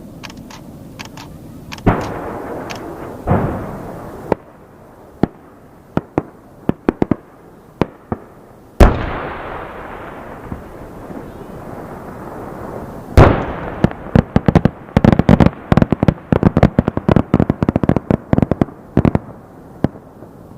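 Fireworks going off. Scattered bangs and pops lead to two big booms with long rumbling tails about 9 and 13 seconds in, then a fast run of crackling pops.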